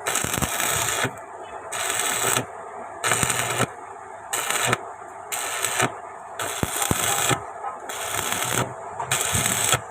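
Electric arc welding crackling in a string of short bursts, each about half a second to a second long with brief pauses between, as a reinforcement plate is stitch-welded onto a vehicle chassis.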